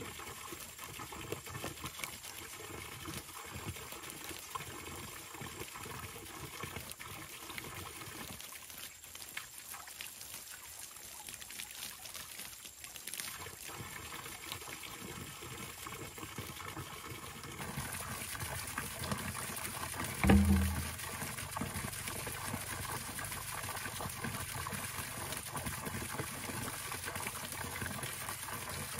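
Water trickling and pouring steadily, the flow turning fuller and a little louder about two-thirds of the way through, with a single dull thump soon after.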